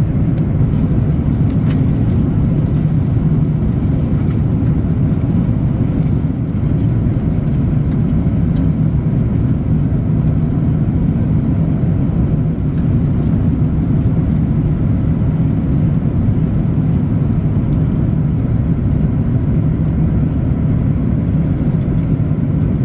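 Steady low rumble inside the cabin of an Airbus A340-300, the even drone of the airliner heard from a passenger seat.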